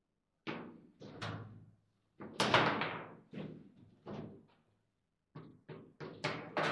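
Table football play: the ball struck by the rod-mounted figures and knocking against the table, with the rods clacking, heard as a string of sharp knocks. The loudest comes about two and a half seconds in, and they come quicker near the end.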